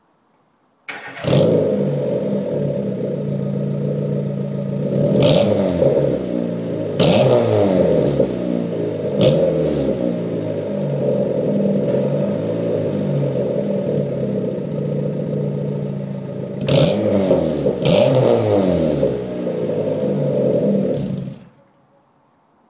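Citroën Saxo 1.4 8v four-cylinder petrol engine heard at the tailpipe of its Sportex exhaust, starting up after a year standing and catching almost at once. It idles and is revved in short blips several times, then is switched off near the end.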